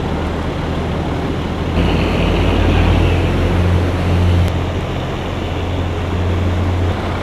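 Vehicle engines running as trucks push through deep floodwater, a steady low rumble under the wash and rush of moving water. The water noise grows louder about two seconds in.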